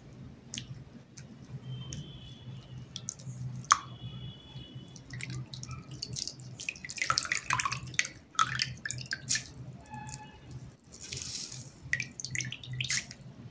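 Wet grated raw potato squeezed by hand over a steel bowl of water, with water dripping and splashing back into the bowl as each handful is wrung out and lifted; a short splash about eleven seconds in. The potato is being wrung dry after rinsing out its starch.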